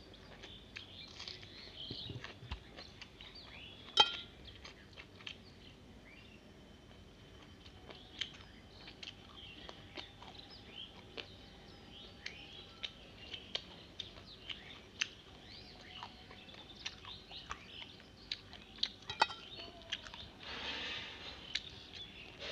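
Close-up eating sounds of rice and fried fish eaten by hand: wet mouth clicks, chewing and small crunches, with a sharp click about four seconds in and a brief rustling swish near the end.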